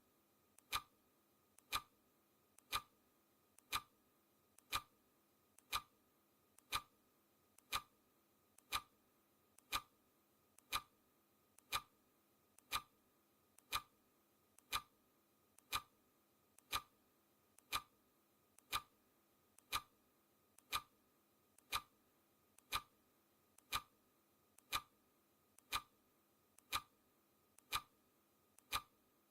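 Clock-ticking sound effect, one sharp tick each second with a faint click just before each, marking off the seconds of a countdown timer.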